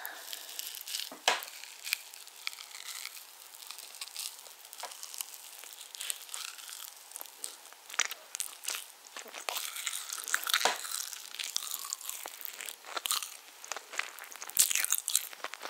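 Close-miked chewing of a mouthful of spiced orange cake: sticky, moist mouth sounds with irregular small clicks and crackles.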